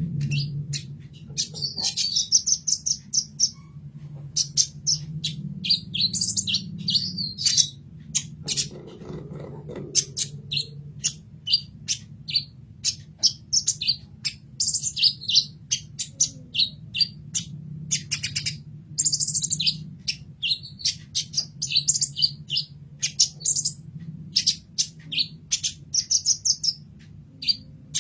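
Kolibri ninja sunbird singing: a rapid run of sharp chips and high twittering phrases, over a steady low hum.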